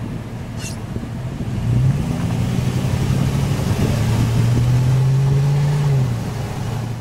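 An engine running steadily under a rush of wind noise. Its hum rises and grows louder about two seconds in, then drops back near the end.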